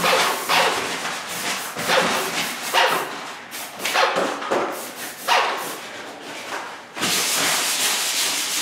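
A dog barking repeatedly, a bark every half-second to second. About seven seconds in, a steady hiss starts suddenly and holds.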